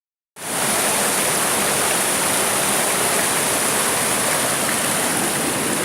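Fast mountain river (the Left Talgar) rushing over rocks: a steady, loud roar of water.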